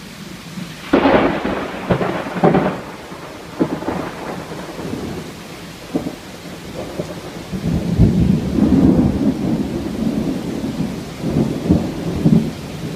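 Severe thunderstorm: heavy rain with thunder that cracks suddenly about a second in and rolls on in loud, uneven waves, while strong gusts whip the trees.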